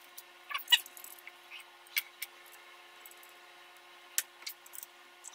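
Scattered small clicks and clinks of a router bit, collet and wrench being handled while the bit and collet are swapped in a CNC router's spindle: a quick cluster about half a second in, then single ticks every second or two.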